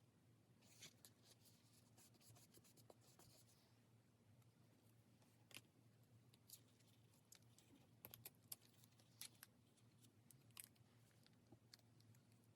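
Faint scratchy strokes of a pen drawing on paper, quick and dense for a few seconds, then a handful of light, separate ticks and taps.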